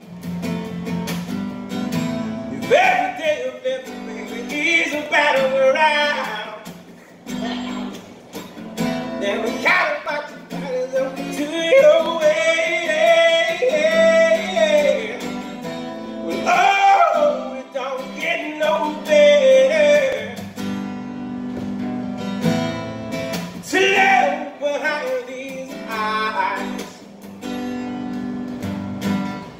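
A man singing to a strummed acoustic guitar, in phrases separated by short breaks where only the guitar is heard.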